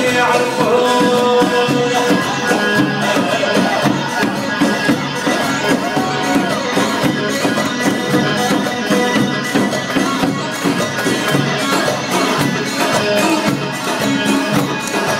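Yemeni folk dance music, driven by a large double-headed drum beaten with a stick in a steady rhythm, with a held melody above it.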